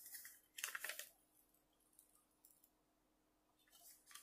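Faint crackle of a plastic protective film being peeled back off the adhesive surface of a diamond painting canvas, in two short bursts in the first second, then near silence.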